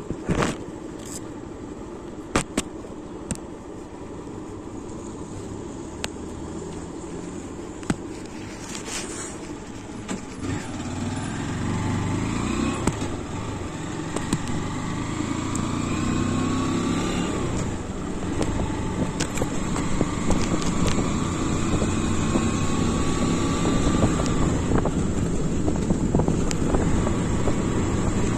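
Honda motorcycle engine running low at first, with a few sharp clicks. From about ten seconds in it grows louder as the bike accelerates, its pitch climbing again and again through the gears.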